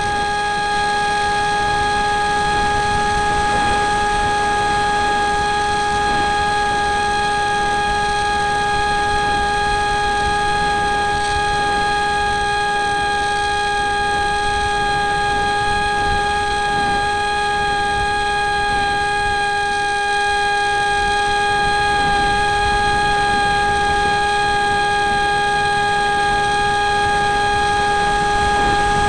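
Electric motor and propeller of an RC flying wing, heard from a camera on board: a steady high whine at constant throttle, over a rush of air across the microphone.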